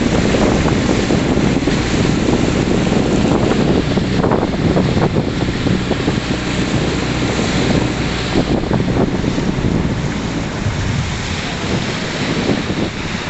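A boat under way on a lake: wind buffeting the microphone and water rushing along the hull, with a low steady drone underneath.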